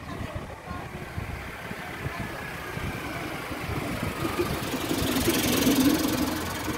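Small Suzuki mini pickup truck's engine running as it drives up and passes close by, growing louder to a peak about five to six seconds in and then easing off, over a steady low rumble.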